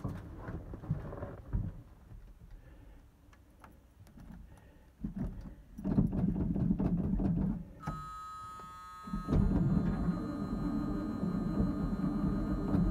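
Chevrolet 454 big-block V8 being cranked over by the starter on a 0 °F cold start: a first burst of cranking about five seconds in, a short lull, then a louder, sustained run of cranking or catching from a little past the middle. Light clicks from the key and cab come before it.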